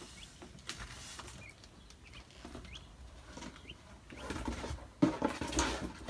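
Rustling and handling noise of a hand working among branches and litter in a bird cage, with faint short peeps from small birds about four times. A louder burst of rustling and scuffling comes near the end.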